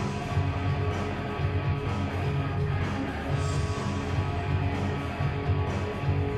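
Rock band playing live: guitar over a heavy bass and drum pulse, the music running steadily.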